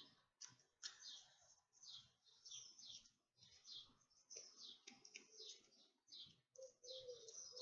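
Near silence with faint, quick scratching strokes repeated throughout; a faint hum comes in near the end.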